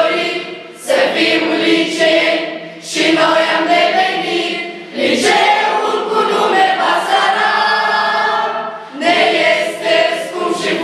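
A choir of schoolchildren, girls' and boys' voices together, singing a song in phrases with short breaks for breath between them; the longest phrase is held about four seconds.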